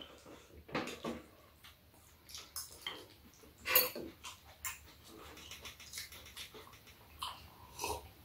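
Eating at a table tray: spoons and chopsticks clicking against bowls and a metal tray, with chewing and mouth sounds. The short clicks come irregularly, with a louder sharp one near the middle.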